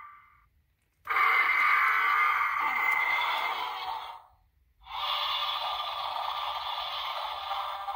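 Playmates Battle Roar Mechagodzilla toy figure playing its electronic roar sound effects through a small built-in speaker: two roars of about three seconds each, with a brief silence between them.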